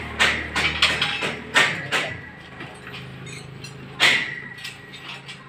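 Metal being struck with a hammer during a concrete-mixer bearing job: a quick series of ringing blows, about three a second, over the first two seconds, then a single louder metal clank about four seconds in. A low hum underneath stops about a second and a half in.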